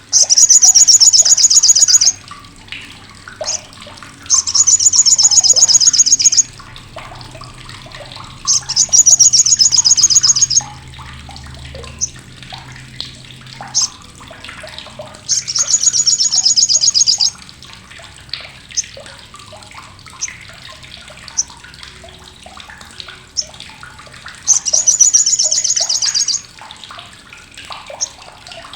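Olive-backed sunbird (sogok ontong, sriganti) giving its loud, harsh, sharp chattering trill ('crecetan') in five bouts of about two seconds each. Softer single chirps come in between.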